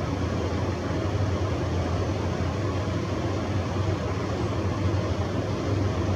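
Steady background rumble and hiss with a low hum, unchanging throughout and with no distinct events.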